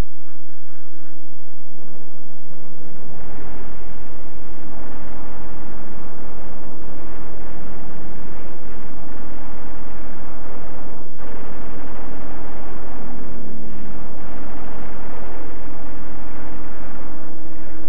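Air-battle soundtrack: aircraft engines droning under a dense din of gunfire and explosions, which grows much denser about three seconds in.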